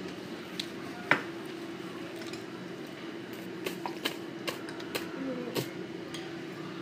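Scattered clicks and clinks of tableware during a meal, one sharp one about a second in and a handful more later, over a steady low hum.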